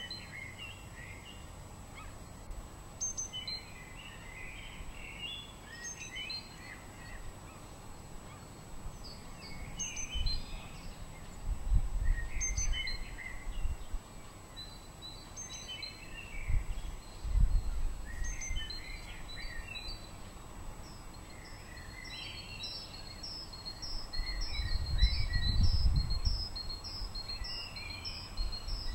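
Songbirds singing short phrases every few seconds, with a quick run of repeated high notes near the end. Low wind rumbles buffet the microphone a few times and are the loudest thing.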